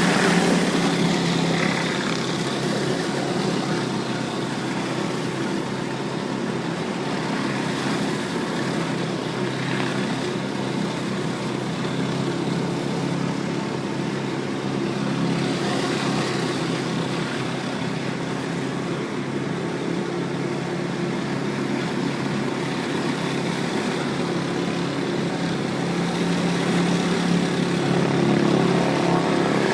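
Pressure washer's engine running steadily, with the even hiss of its water spray over it.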